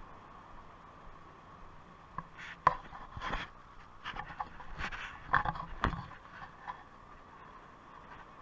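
Irregular clicks, taps and scrapes close to the microphone, bunched in the middle few seconds, over a faint steady hiss.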